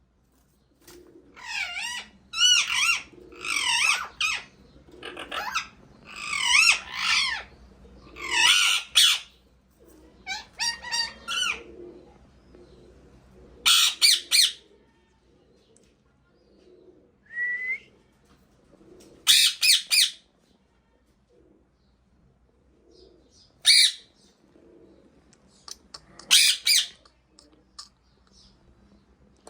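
Parrot squawking and calling: a dense run of harsh calls for the first ten seconds or so, then single short squawks every few seconds.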